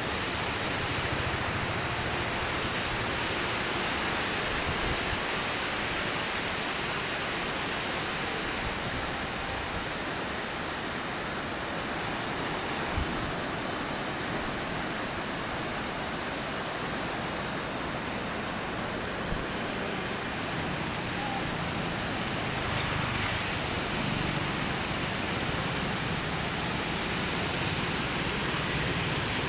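Steady rushing noise of the Godavari River in flood, its fast muddy current swirling past the bridge piers. Two brief knocks about 13 and 19 seconds in.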